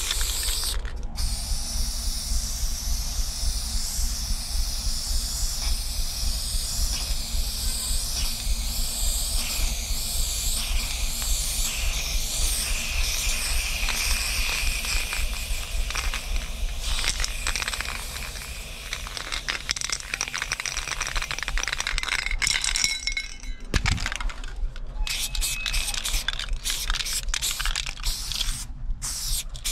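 Aerosol spray-paint can hissing in long sprays, with a short break about a second in. Near the end the spraying turns stop-start, with clicks and rattles between sprays.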